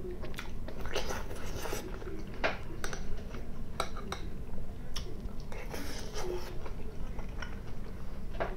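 A metal spoon clicking and scraping against ceramic plates and bowls in a dozen or so sharp, irregular clinks, with close-up chewing of food between them.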